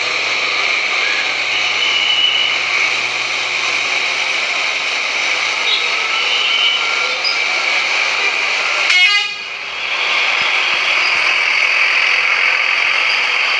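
Bus horn sounding continuously, broken about nine seconds in by a short rattle of quick clicks and a brief dip before it sounds again.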